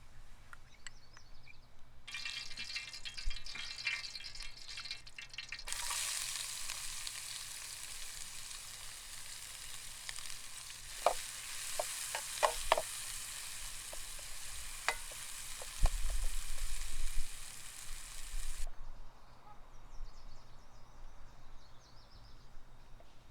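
Food sizzling in a hot pan, starting about two seconds in and growing much louder near six seconds, with a utensil clinking against the pan several times while it is stirred. The sizzle cuts off about nineteen seconds in.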